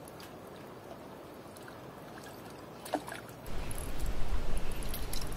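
Small waves lapping steadily at a lakeshore, with a click about three seconds in. After about three and a half seconds the sound gets louder, with a low rumble of wind buffeting the microphone.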